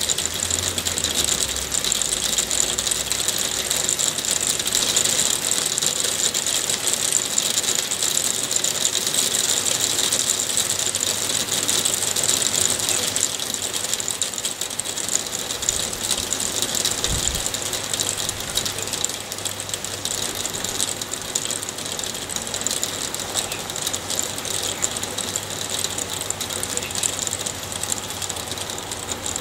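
Hail falling: a dense, steady crackle of countless rapid ticks that eases slightly in the second half.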